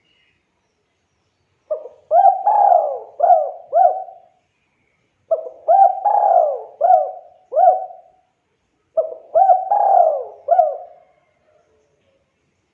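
Spotted dove (tekukur) cooing: three phrases of about five rounded coo notes each, a pause of about a second between phrases, the dove in full voice (gacor).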